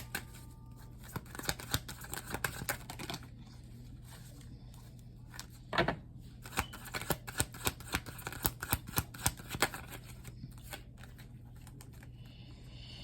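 A deck of tarot cards being shuffled and handled: two spells of quick crisp card clicks and slaps, the first at the start and the second from about six seconds in, over a faint steady hum.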